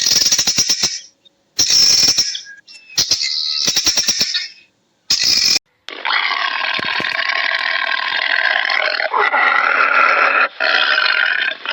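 Fowl calling: four short bursts of fast rattling clicks, then about six seconds of dense continuous calling.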